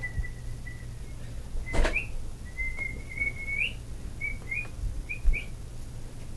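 A person whistling a thin, nearly level high note in several short phrases, each ending in a quick upward flick, over low bumping and rustling of blankets being handled; a sharp knock about two seconds in.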